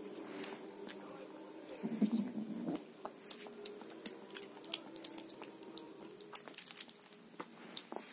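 Ginger kitten eating from a bowl, with quick crunching and chewing clicks coming irregularly. A low steady drone runs underneath, swelling briefly about two seconds in.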